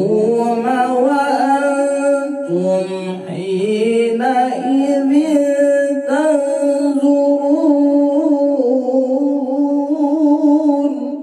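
A man reciting the Quran in the melodic tilawah style, drawing out long held notes with wavering, ornamented turns and short breaks between phrases.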